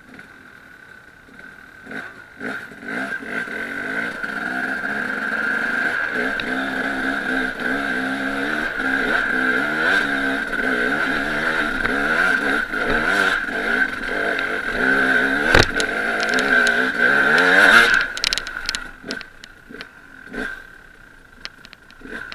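Enduro motorcycle engine revving hard under load on a steep, loose hill climb, the revs rising and falling, with a sharp knock about fifteen seconds in. The engine noise cuts off suddenly about eighteen seconds in, leaving scattered knocks and rattles.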